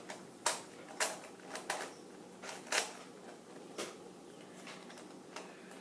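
Plastic Rubik's Cube layers being turned by hand, giving a run of irregular sharp clicks and clacks as faces snap into place. The cube is a locky one with a hollow inside.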